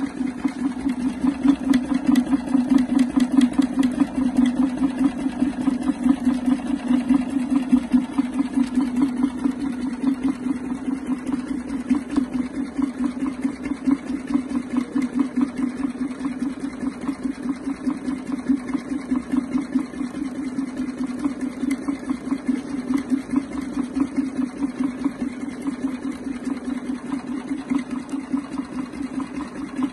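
Peter KL GN30-2A single-needle, three-thread carpet overlock sewing machine running steadily while it overseams a carpet edge. It makes a low hum that pulses rapidly and evenly with the stitching.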